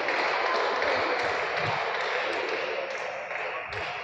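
Steady murmur of a crowd of voices in a sports hall, with a few faint taps.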